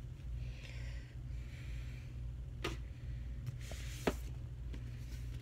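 Faint rustling and two light clicks, the second about four seconds in with a short hiss, over a steady low hum.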